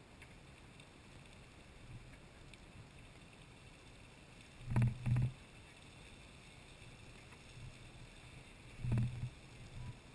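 Lady Knox Geyser erupting: a steady rushing noise of water and steam from its column. Short low bursts of sound break in, two together about five seconds in and one more near nine seconds.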